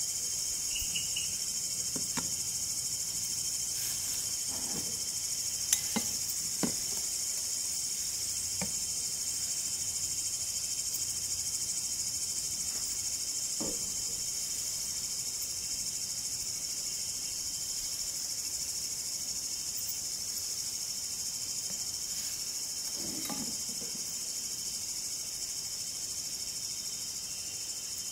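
Steady high-pitched chorus of night insects such as crickets. A few light clicks and knocks of glassware being handled sound over it.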